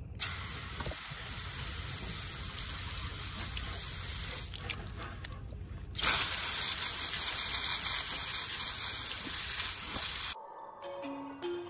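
Water spraying in a steady stream, in two runs of about four seconds with a short break between, the second louder; it cuts off abruptly near the end.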